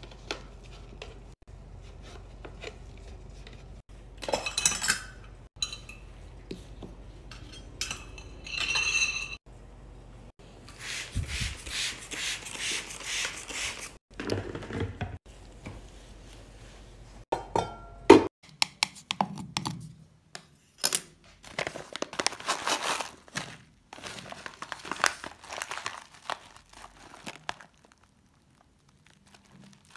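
Clinks, knocks and rustling of plastic cosmetic containers and salon supplies being handled and set in place, with one sharp knock a little past halfway. In the second half, a plastic bag of hard wax beads crinkles and its beads clatter.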